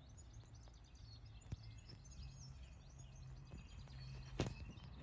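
Small birds chirping and warbling, many short calls overlapping, over a faint low steady hum. A sharp click sounds about a second and a half in, and a louder one near the end.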